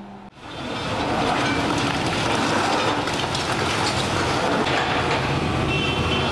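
Hydraulic excavator demolishing brick buildings: the machine running while its bucket breaks and scrapes brick and concrete and rubble clatters down, a dense, steady din that starts about a third of a second in.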